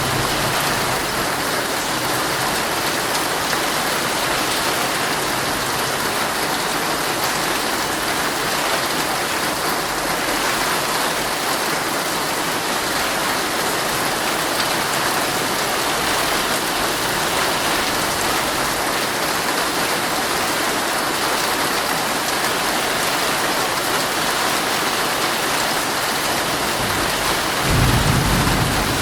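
Heavy rain falling steadily on a tent, a dense even hiss of drops. About a second before the end, a low rumble of thunder swells in beneath it.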